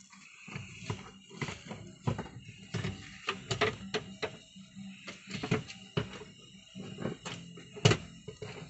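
Background music with sustained tones, crossed by irregular sharp clicks and knocks, the loudest near the end.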